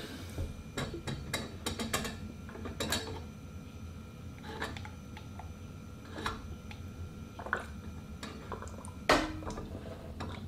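Scattered light clicks and taps as a plastic bottle of methylated spirit is uncapped and squeezed over a metal cooker cup, with one louder knock about nine seconds in.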